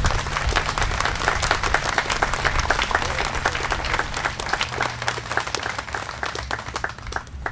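Audience applauding, a crowd of hand claps that thins out and stops near the end.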